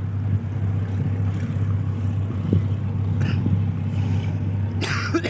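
Steady low drone of the passenger ship KM Bukit Raya's diesel engines as it manoeuvres away from the pier, with a brief rush of noise about five seconds in.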